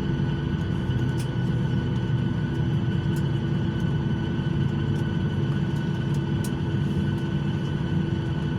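Steady cabin noise of a jet airliner rolling on the ground after landing: a low rumble with constant whining tones from the engines, and a few faint rattling ticks.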